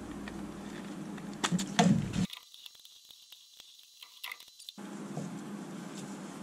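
Hands handling the plastic gauge face and circuit board of an instrument cluster: a few sharp clicks and taps over a steady background hum, which drops out abruptly for about two seconds in the middle.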